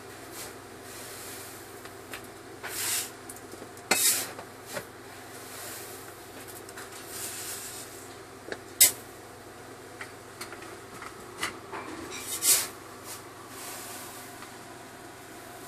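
Handling noise from a handheld recorder filming a screen: a few short rustles, scrapes and clicks, the sharpest about halfway through, over a steady low hum.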